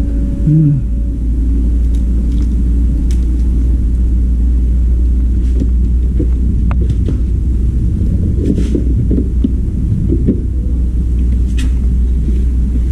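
A steady low rumble throughout, with scattered light clicks and knocks as a plastic fan housing and its wiring are handled.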